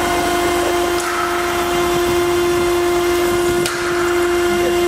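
Water-cooled spindle of a CNC stone router cutting into a stone slab: a steady whine over a continuous grinding hiss.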